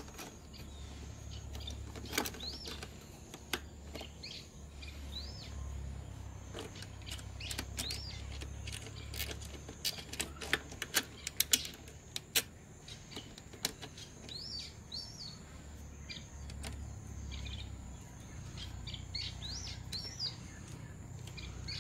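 Light clicks and taps of an aluminium handlebar rod's clamp and bolt being fitted by hand onto a motorcycle handlebar, thickest about ten to twelve seconds in. Birds chirp repeatedly in the background.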